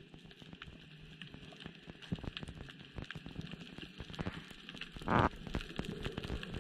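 Underwater reef ambience heard through a waterproof camera housing: a steady crackle of many small sharp clicks, with one short, louder rushing burst about five seconds in.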